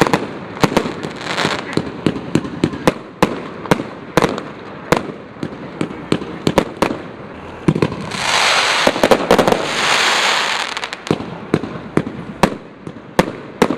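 Aerial fireworks going off in a rapid run of sharp bangs, one or two a second. About eight seconds in, a loud hissing rush lasting some three seconds rises under the bangs, then the bangs carry on.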